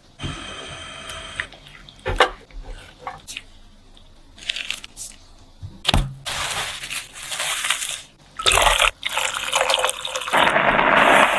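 Liquid batter poured into a non-stick pan, with splashing and a few knocks from the spatula and pan. A steady hiss follows and grows loud near the end.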